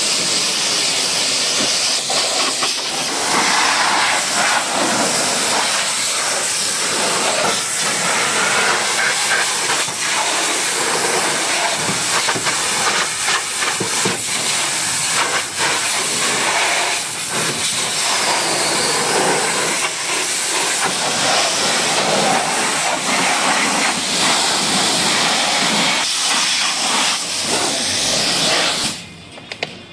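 Pressure washer jet spraying water onto a car's windscreen, bodywork and wheel: a loud hiss that rises and dips as the spray moves. It cuts off suddenly near the end.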